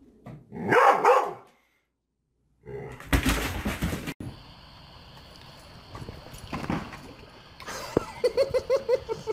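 A dog barking: one loud burst about a second in, then a quick run of short barks near the end, with a stretch of scuffling noise between them.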